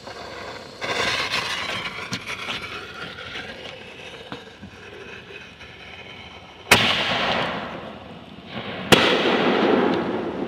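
Aerial firework shells: a crackling hiss from about a second in, then two sharp bangs about two seconds apart in the second half, each followed by a long rumbling echo.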